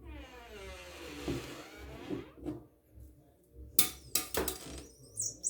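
A long creaking sound, its pitch falling over about two seconds, then a few sharp knocks about four seconds in.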